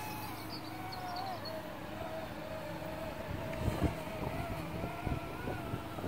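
Parrot Swing mini drone's motors whining at a distance, the pitch wavering up and down as it holds itself against the gusts, with wind buffeting the microphone.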